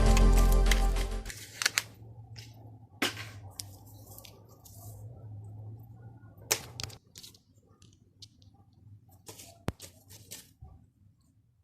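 Background music that stops about a second in, followed by scattered sharp pops and clicks, about half a dozen spaced a second or more apart, from the bubbles of a silicone pop-it fidget toy being pressed.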